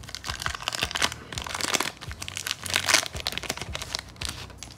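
Wax-paper wrapper of a 1991 Score hockey card pack crinkling and tearing in irregular crackles as it is peeled open and the cards are slid out.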